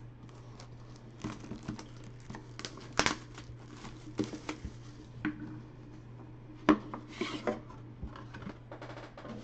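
Cardboard trading-card box handled on a table: the cardboard rubs and scrapes as the white outer box is worked off the sealed inner box, with scattered taps and two sharper knocks, about three seconds in and just before seven seconds, over a low steady hum.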